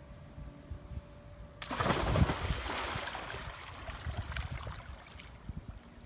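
A person plunging into a swimming pool: a sudden splash about a second and a half in, then churning water that dies away over the next few seconds.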